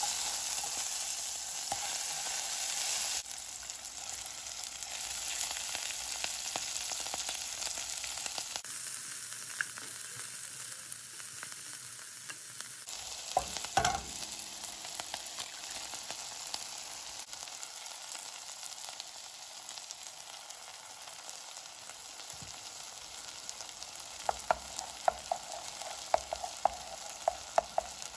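Meat and shredded cabbage sizzling in oil in a nonstick pan while being stirred with a plastic slotted spatula. Near the end, quick sharp ticks of the spatula against the pan as an egg is stirred through.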